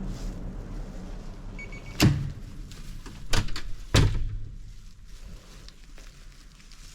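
A short faint beep, then three heavy knocks or thuds over about two seconds, the middle one doubled.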